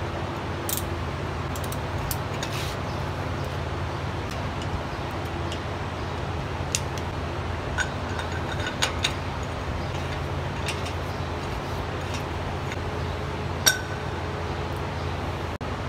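Scattered light metallic clinks and taps as an axle hub nut and its locking ring are worked loose with a wrench and slid off the spindle. A steady low hum runs underneath.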